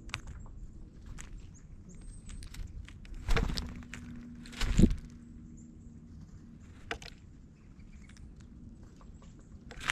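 Small birds moving about at the camera, with scattered light clicks and scuffs and two louder thumps a little over a second apart near the middle. A few faint high chirps come in between.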